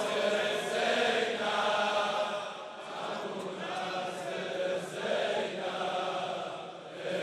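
A large crowd of men chanting a Muharram lament refrain together in unison, answering the lead reciter's line. The many voices blend into one blurred sound with no single voice standing out.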